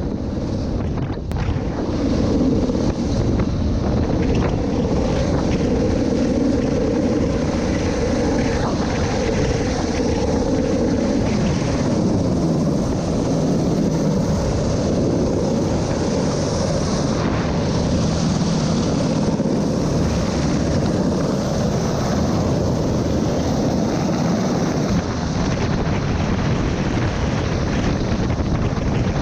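Steady engine noise with wind buffeting the microphone.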